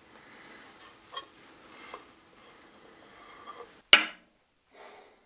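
Light handling sounds of a small aluminium square held against a wood block, with a few faint clicks. Just before four seconds in, a single sharp knock as a small object is set down on the planer's metal table, then one brief soft rustle.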